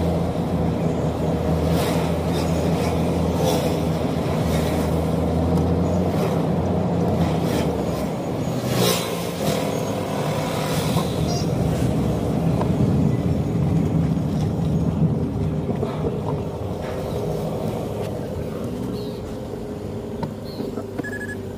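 Car engine and tyre noise from inside the cabin while driving through town traffic, a steady low hum with a few short clicks and knocks along the way.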